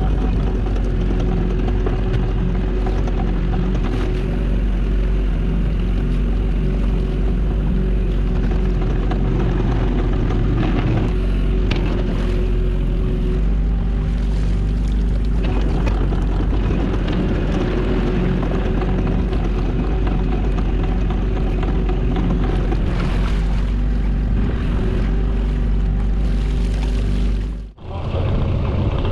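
A small fishing boat's engine runs steadily at a low drone while a lobster pot is hauled aboard. The sound drops out briefly and sharply about a second before the end, then the engine drone comes back.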